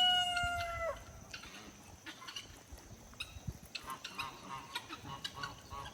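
Rooster crowing: the crow ends on one long held note that slides slightly down and stops about a second in. Faint short chicken calls follow now and then.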